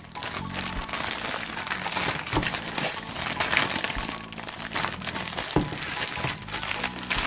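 Clear zip-lock plastic bag crinkling and crackling as hands squeeze and turn it, the dolls and doll clothes shifting inside. Background music plays underneath.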